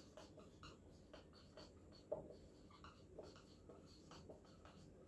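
Marker pen writing on a whiteboard: faint scratching in a string of short strokes.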